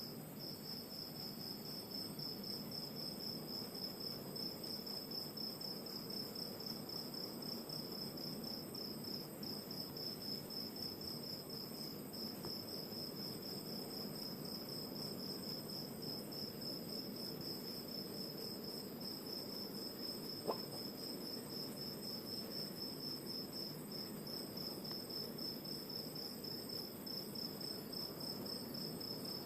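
Crickets chirping in a steady, pulsing high trill, over a low even rush of distant ocean surf. A single short tick about twenty seconds in.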